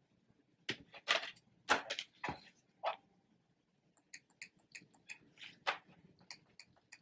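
Handling noises while unboxing a phone: a few short rustles and knocks. About four seconds in, a run of quick, light clicks starts, roughly three a second.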